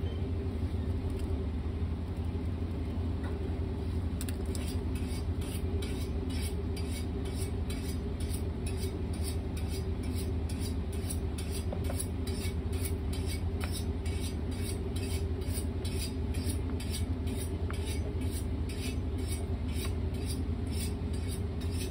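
A steady low mechanical hum runs under light clinks of plates and bowls on a steel counter. From about four seconds in, a soft high ticking repeats about twice a second.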